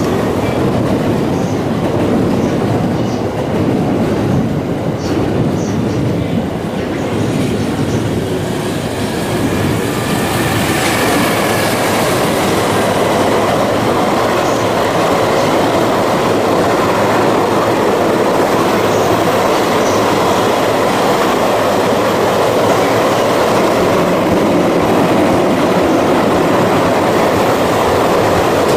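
Fukuyama Rail Express container freight train passing, with the steady noise of its wagon wheels running on the rails, growing a little louder about ten seconds in.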